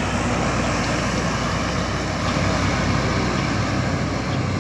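Intercity coach's diesel engine running steadily as the bus pulls past close by and heads off down the road, with tyre and road noise.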